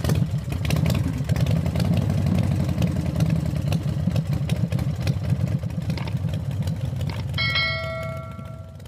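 Toyota Avalon's V6 engine running steadily with a busy ticking clatter, on an engine logging random misfires on cylinders 5 and 6. A steady electronic beep sounds for about a second and a half near the end.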